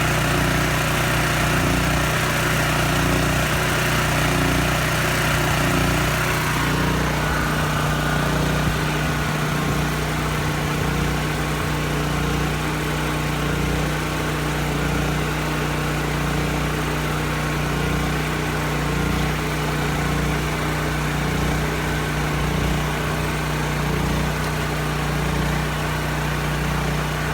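Portable generator engine running steadily, its tone shifting about seven seconds in.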